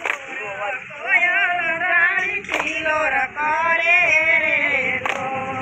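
A single voice singing a garba folk melody with wavering, ornamented long notes, with a sharp click about two and a half seconds in and again near the end.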